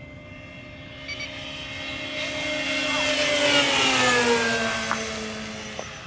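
Electric radio-controlled warbird model planes making a fast pass: the whine of their motors and propellers swells to its loudest about four seconds in, then drops in pitch as they go by.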